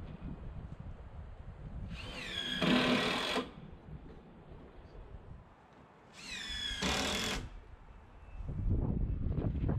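Power drill running in two short bursts about four seconds apart, each a whine that bends in pitch, with a low rumble between.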